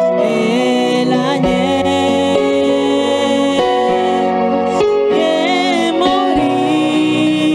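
Slow worship music: long sustained chords with a wavering melody line gliding over them.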